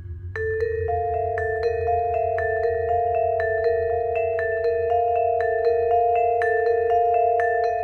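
Vibraphone played with yarn mallets: a quick, even run of struck notes, about three a second, begins just under half a second in, while two lower notes keep ringing underneath. A steady low hum sits beneath the playing.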